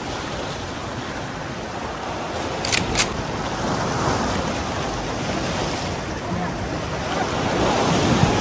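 Sea surf washing against shore rocks, with wind buffeting the microphone. Two sharp clicks come close together about three seconds in.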